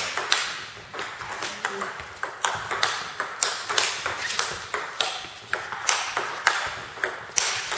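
A table tennis rally: the celluloid-type ball clicks sharply off rubber-covered bats and bounces on the table, about two to three hits a second, each hit ringing briefly in the hall.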